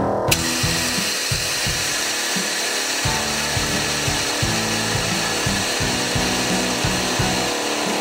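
Electric motor on a car-hauler trailer's power unit starts about a third of a second in and runs steadily, as the trailer is worked to load a truck. Background music plays under it.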